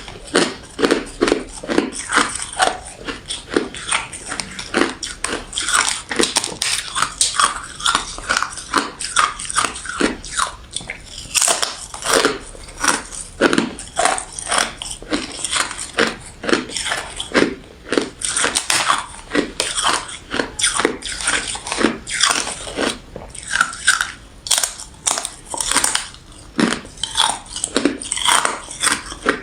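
A person biting and chewing refrozen crushed ice and freezer frost close to the microphone. The crunching comes in quick, irregular crackles, several a second, with no break.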